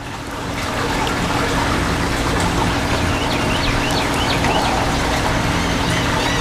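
Steady low hum of a boat's onboard machinery running under an even hiss, with a few short high chirps in the middle.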